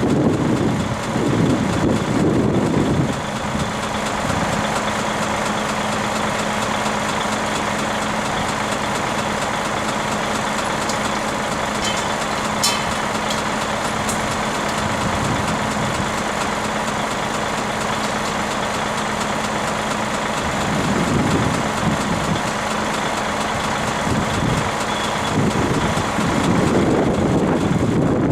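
Heavy diesel engine running steadily, getting louder near the start and again in the last several seconds as it works harder.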